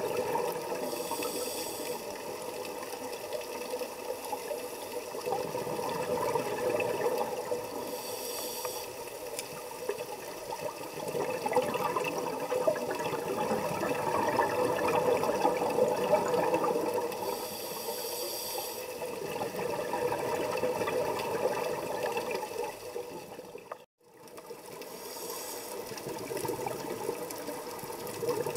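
Scuba regulator breathing underwater: four short hisses of inhalation, several seconds apart, with a rushing burble of exhaled bubbles swelling between them. The sound drops out for a moment about three-quarters of the way through.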